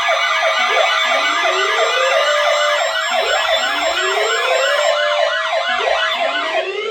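Several emergency sirens sounding over one another, loud. A fast yelp sweeps up and down about three times a second, a slower wail climbs and holds every couple of seconds, and steady tones run underneath.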